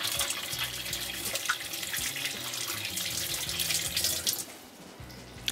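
Masala-coated fish pieces shallow-frying in hot oil in a pan: a dense sizzle with crackling pops, which falls away after about four and a half seconds.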